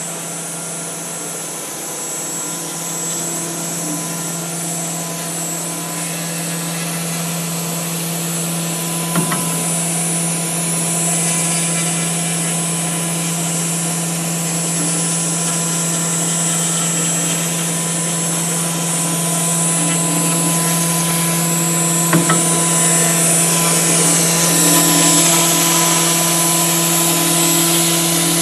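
SINMIC SC-1530-4A four-axis CNC router running, its spindle giving a steady whine and hum as the bit carves a bust out of polystyrene foam. The sound grows slightly louder over time, with two brief clicks about nine and twenty-two seconds in.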